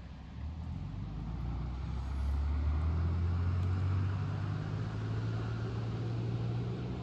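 Low engine drone of a passing motor vehicle. It grows in over the first two seconds, slowly rises in pitch, and eases slightly near the end.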